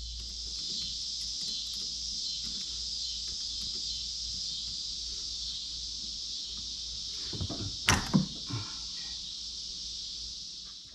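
A few metallic clunks and knocks from an outer CV joint being worked off a drive-axle shaft after its retaining ring is expanded. They sit over a steady high hiss, and the loudest knocks come about eight seconds in.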